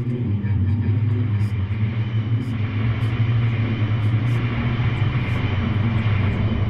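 A steady low engine rumble with a constant low hum and a noisy haze above it.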